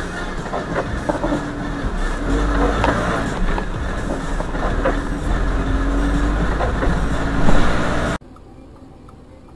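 Vehicle and road noise: a steady low rumble with a louder burst about seven and a half seconds in, cutting off abruptly near the end.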